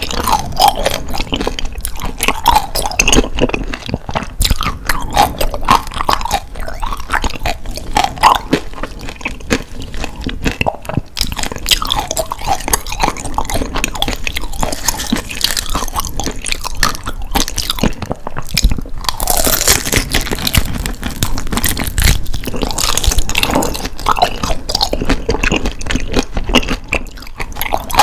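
Close-miked biting and chewing of grilled daechang (beef large intestine): a dense run of crisp crunches and crackles mixed with wet chewing.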